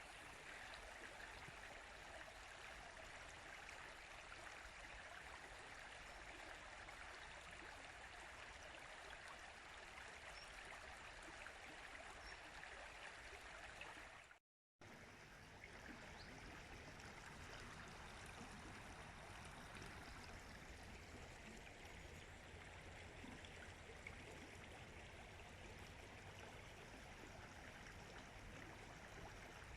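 Faint, steady flowing water of a stream, cutting out completely for a split second about halfway through.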